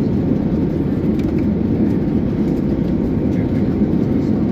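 Steady low rumble of engine and airflow noise inside the cabin of an Airbus A321neo with CFM LEAP-1A engines, even and unchanging in level.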